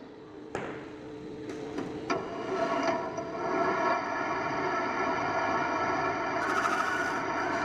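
Metal lathe starting up and spinning a motorcycle cast wheel clamped in its chuck, a steady mechanical run with a gear whine that comes in about two seconds in and builds to full speed by about four seconds in.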